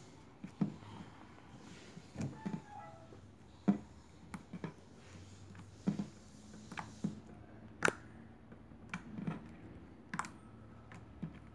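Homemade glue slime being pressed and kneaded by fingers on a wooden surface, giving off irregular sharp clicks and pops, about a dozen scattered through.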